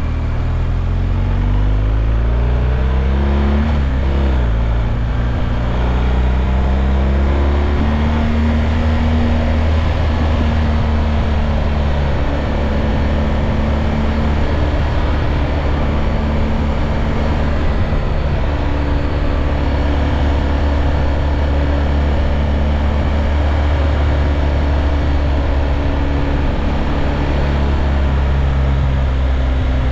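Motorcycle engine running under way, with wind noise. Its note shifts up and down in the first few seconds, then holds steady.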